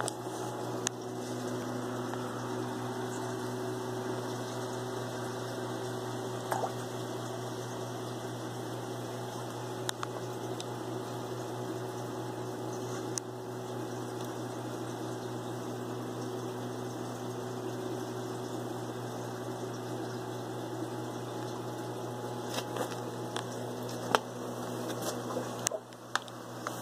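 Steady electric hum and water noise from a saltwater aquarium's pump and filtration running, with a few faint clicks scattered through it.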